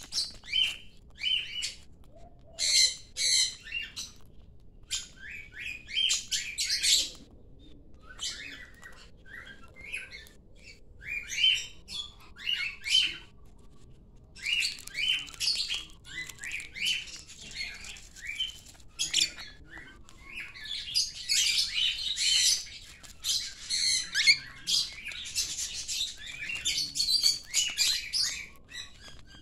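Small pet parrots, lovebirds and a cockatiel, chirping and squawking: quick runs of shrill calls in bursts, with short lulls between them.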